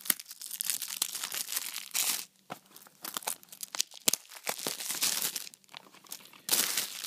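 Plastic shrink-wrap on a new Blu-ray case crinkling and tearing as fingers work at it: an irregular run of crackles and rustles, with brief pauses.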